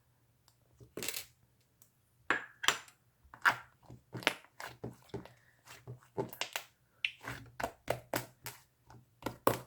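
Irregular sharp taps and clicks, a few a second, coming quicker and denser near the end.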